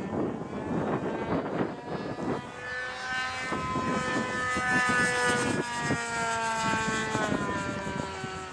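Radio-controlled model airplane's engine buzzing overhead, its pitch sliding slowly down over several seconds. Wind rumbles on the microphone in the first couple of seconds.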